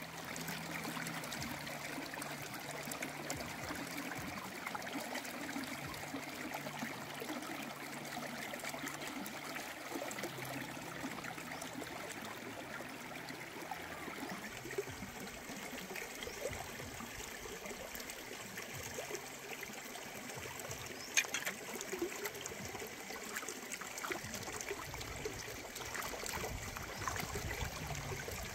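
A shallow stream running over rocks, a steady rushing trickle. Near the end, water splashes as a bunch of mushrooms is rinsed by hand in the stream.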